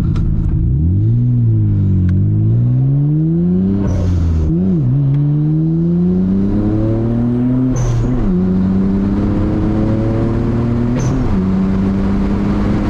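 Nissan Skyline GT-R R32's twin-turbo RB26DETT straight-six accelerating hard through the gears: the engine note climbs, drops at each of three upshifts, then holds steady near the end. A short hiss from the turbo blow-off valve comes at each shift.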